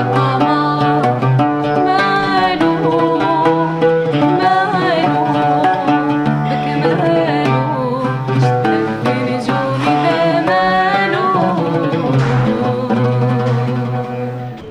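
A woman singing an Arabic-style melody to oud accompaniment, the plucked oud notes running under her voice. The music eases off near the end.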